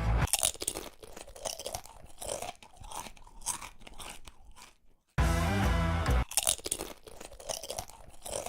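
Crisp baked kale chips crunching loudly as they are bitten and chewed, an irregular run of dry crackles. About five seconds in, a loud burst of music lasting about a second cuts in, then the crunching resumes.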